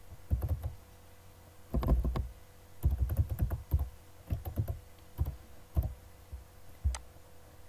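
Computer keyboard typing in short, irregular bursts of keystrokes with pauses between them, as a password is entered.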